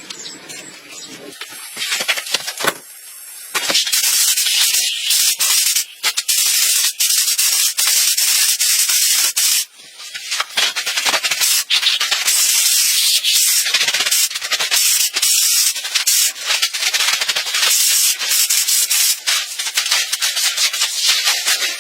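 Rapid, rough abrasive rubbing on a hard surface, made of many quick strokes, loud from about three and a half seconds in after a quieter start.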